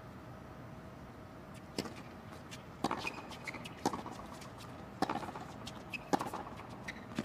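Tennis ball struck by rackets in a hard-court rally: sharp pops about once a second, starting nearly two seconds in, over a low steady crowd and arena background.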